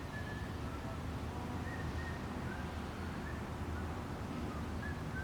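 Faint bird chirps, short high notes every second or so, over a steady low rumble of background noise.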